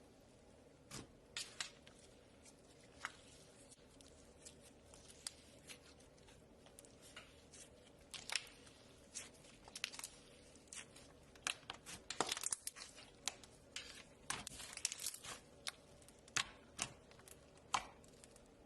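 Knife carving a bar of soap: irregular crisp crackles and scraping cuts, coming thicker in a quick run of strokes in the middle of the stretch.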